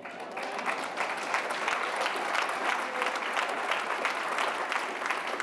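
Audience applauding: dense clapping that starts suddenly and keeps up at an even level.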